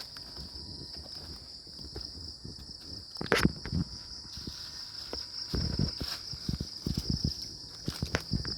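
Steady, high-pitched chorus of night insects, with scattered rustling and footstep noises that grow busier from about five and a half seconds in, and a sharp click a little past three seconds.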